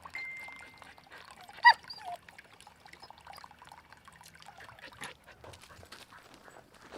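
A husky gives a short high-pitched yelp about a second and a half in, followed at once by a fainter second one.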